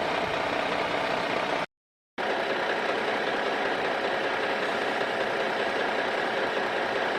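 Small electric motor running with a steady mechanical hum. The sound cuts out completely for about half a second near two seconds in, then carries on unchanged.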